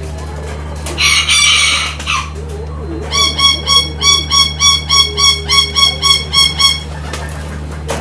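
A bird calling with a rapid run of short, same-pitched notes, about three or four a second, for several seconds, after a louder harsh burst about a second in. A steady low hum runs under it.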